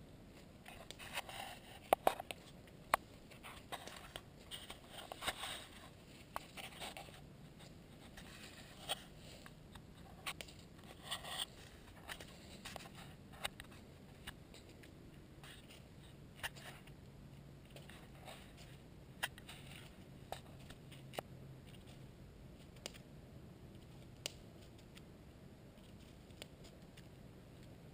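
Campfire crackling: irregular sharp pops and snaps from burning wood, busiest in the first dozen seconds and sparser later.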